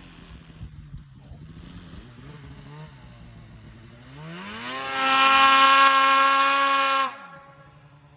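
Polaris RMK 800 two-stroke snowmobile engine idling, then revved hard about four seconds in as the sled launches into the powder. Its pitch rises and holds steady and loud for about two seconds, then drops sharply as the throttle comes off.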